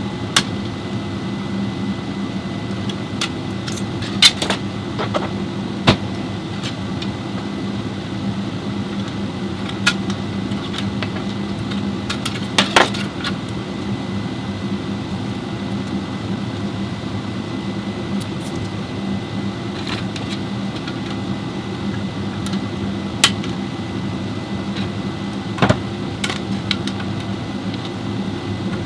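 Steady mechanical hum with about a dozen short, sharp metallic clinks and knocks scattered through it, as of hand tools being handled.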